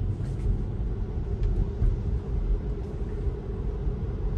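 Steady low rumble of tyre and road noise heard inside the cabin of an electric Tesla driving on a wet road.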